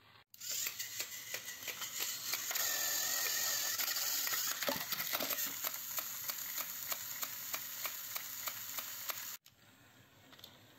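Several battery-powered plastic toy train engines running, their motors and gears whirring with a fast rattling clatter. It starts abruptly just after the beginning and cuts off abruptly about a second before the end.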